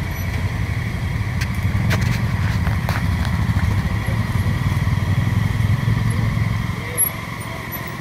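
Honda Pioneer side-by-side UTV engine running as the machine crawls past on a rough dirt trail, swelling through the middle and easing off about seven seconds in, with a few sharp knocks around two to three seconds in.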